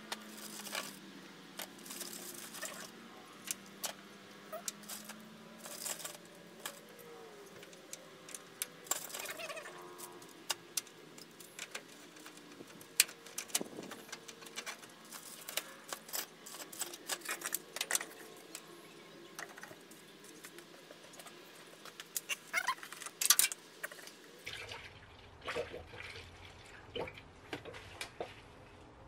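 Scattered clicks, taps and plastic clatter as a coolant-filling funnel kit is handled: adapters picked from their plastic case and the funnel fitted onto the radiator filler neck. A few sharper clacks stand out about halfway through and a few seconds before the end.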